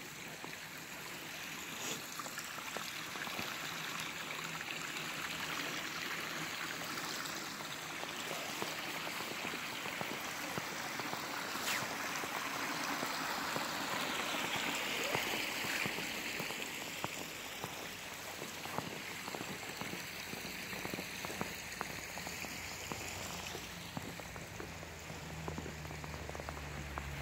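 Small shallow stream running with a steady trickle and babble, louder about halfway through. A low steady hum comes in near the end.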